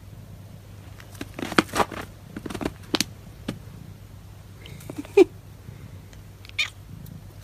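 Scattered light patter, rustles and crunches of a dog and cat scuffling on packed snow, with one brief sharp sound about five seconds in.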